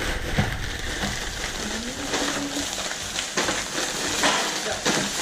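Crinkling and rustling of plastic snack bags and packaging being handled, an irregular crackle throughout.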